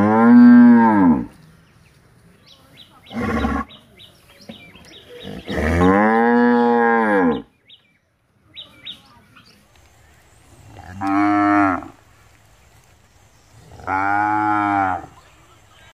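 Cows mooing: five separate moos a few seconds apart, each rising and then falling in pitch. The first and third are long and the second is short. The calls come from more than one cow.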